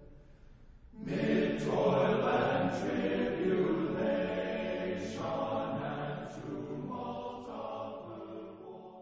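A choir singing. A phrase ends right at the start, and after about a second's pause the voices come back in together with a new phrase, growing slowly fainter toward the end.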